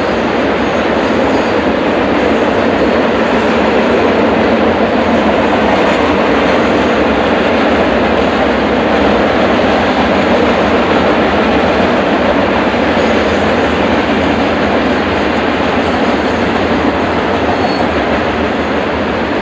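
Union Pacific garbage train's freight cars, loaded with waste containers, rolling past on the rails: a loud, steady rolling noise of wheels on track with no let-up.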